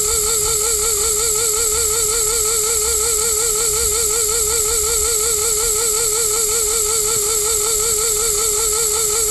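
A steady high electronic whine that wavers quickly and regularly in pitch, about four or five times a second, like a warbling alarm tone.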